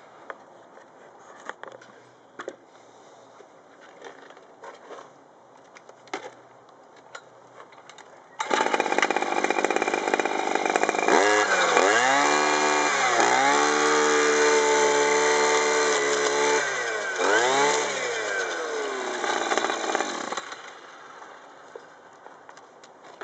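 Petrol string trimmer's two-stroke engine running at high revs for about twelve seconds: its speed dips and picks back up twice, holds steady, sags once more and then cuts off. Faint clicks and knocks come before it starts.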